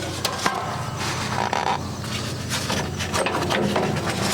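Scattered metallic clanks and knocks as a band blade is fitted on a portable band sawmill, with a brief squeak about a second and a half in, over a steady low hum.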